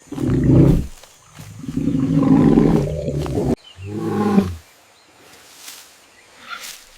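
Three loud, low animal roars; the middle one is the longest and cuts off suddenly. Fainter sounds follow near the end.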